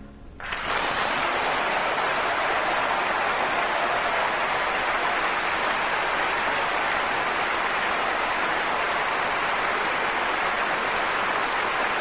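Large audience applauding. The applause breaks out about half a second in and holds steady.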